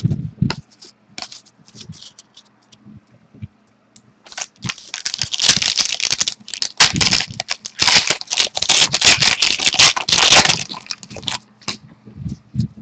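Trading cards being handled close to the microphone: a few soft clicks, then a dense stretch of rustling and scraping from about four seconds in to about eleven seconds in, as cards are slid and moved through the stack.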